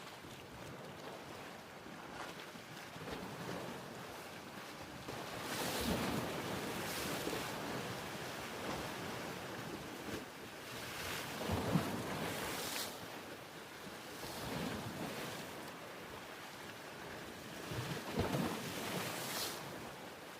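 Ocean surf, waves breaking and washing in, with a steady rush between three louder surges about 6, 12 and 19 seconds in.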